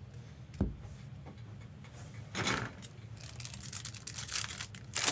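Trading-card packs being handled and opened: a soft knock about half a second in, then tearing and crinkling of pack wrappers with short scratchy scrapes, busiest near the end.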